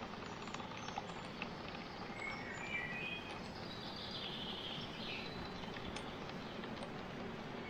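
Steady outdoor background noise with a few short bird chirps, about two to three seconds in and again about four to five seconds in.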